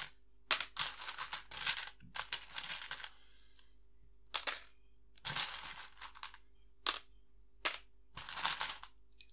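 Plastic Lego Technic pieces clattering as they are rummaged in a plastic tub and dropped into a plastic sorting tray: a string of short rattles with a few sharp clicks.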